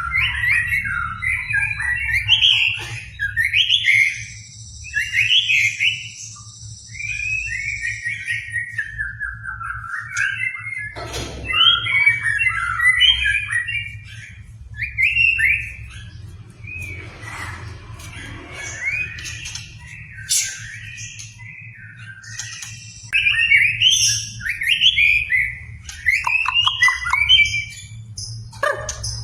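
White-rumped shama (murai batu) singing vigorously, pouring out a long run of varied whistled and chattering phrases with short pauses between bursts. It is a lure song (pancingan) used to rouse a reluctant captive shama into singing.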